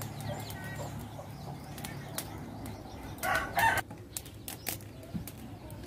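A domestic chicken gives a short loud call a little past three seconds in, over scattered faint ticks and a low steady hum.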